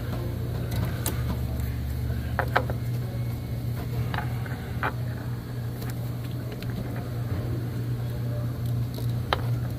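A few separate metallic clicks and taps from a short Snap-on flex-head ratchet and socket being fitted and worked on a bolt, over a steady low hum.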